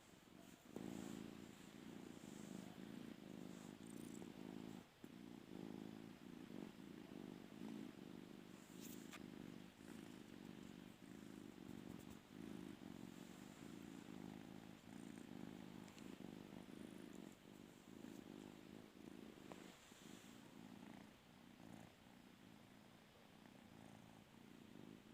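Domestic cat purring softly and steadily, starting about a second in.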